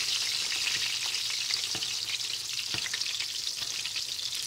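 Breaded schnitzel shallow-frying in a pan of hot oil: a steady sizzle with fine crackling. A few faint clicks of a spoon against the pan as hot oil is spooned over the top of the cutlet.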